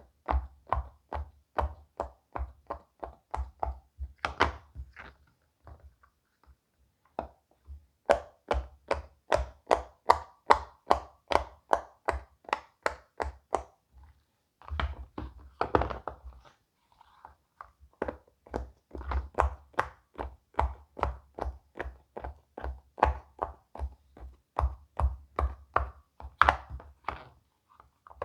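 Silicone pop-it fidget toy bubbles being pressed one after another: a run of soft pops about three a second, with a few short pauses.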